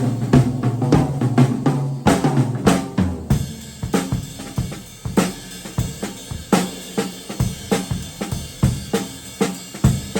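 Vintage 1960s Ludwig double bass drum kit played solo: a busy fill with ringing drums for the first three seconds, then a steadier beat of bass drum, snare and cymbal hits.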